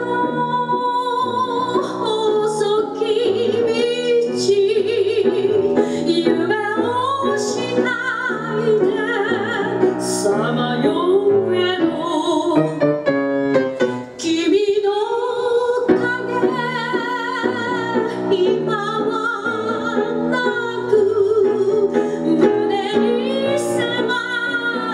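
A woman singing a tango in Japanese with live piano accompaniment, her sustained notes wavering with vibrato. There is a short break between phrases about halfway through.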